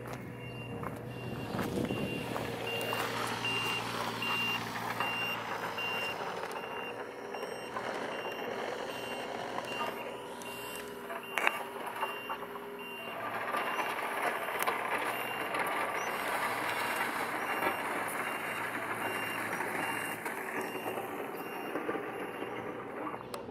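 A fast, even run of high electronic beeps from a warning device, with the noise of passing road vehicles rising and falling underneath.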